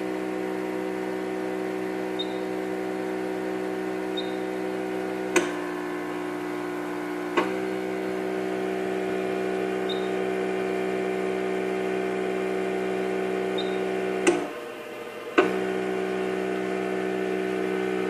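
Stat Fax chemistry analyzer's pump motor humming steadily as it reads a glucose sample on a machine with a vacuum leak error. The hum changes with a click about five seconds in and again two seconds later. It cuts out for about a second near the end, with a click as it stops and another as it starts again.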